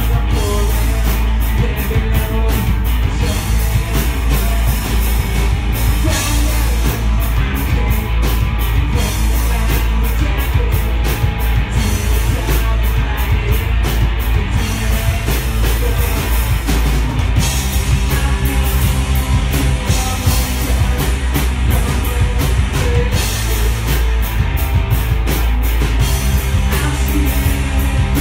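Live rock band playing loudly: electric guitars and a drum kit, with a singer.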